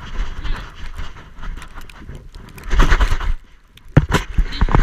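A Siberian Husky puppy moving about in snow, heard through a camera worn on its back: irregular knocks and rustling from its steps and the jostled camera. There is a loud stretch about three seconds in, a brief lull, then a run of sharp knocks near the end.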